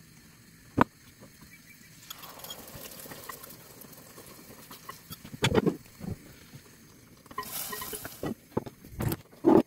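Cooking at a gas stove: a spoon knocking and scraping against cookware and a pot lid clattering, with a brief hiss about seven and a half seconds in as the steaming pot's lid is lifted.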